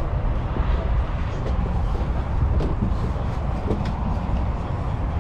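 Steady low rumble of wind buffeting the microphone, with a few faint clicks about two and a half and three and a half seconds in.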